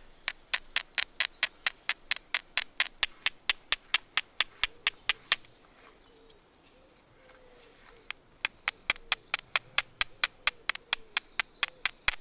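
Flint striking a lump of iron pyrites in quick repeated strokes, about four sharp clicks a second, to throw small sparks onto fungus tinder for a Stone Age fire. The striking stops for nearly three seconds about five seconds in, then starts again.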